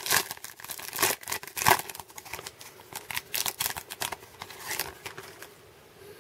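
Foil wrapper of a Topps Chrome baseball card pack crinkling and tearing as it is ripped open by hand: a rapid run of crackles, loudest about a second in and again just before two seconds, thinning out and stopping near the end.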